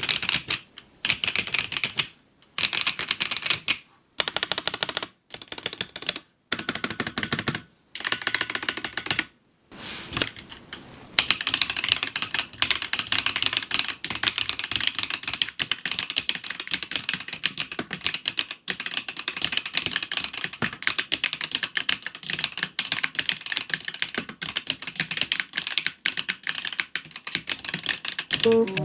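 Typing on a suspension-mounted LeleLab Y2K 76 mechanical keyboard fitted with Smoky ApplePie keycaps: short bursts of rapid key clacks with pauses for about the first ten seconds, then fast, continuous typing.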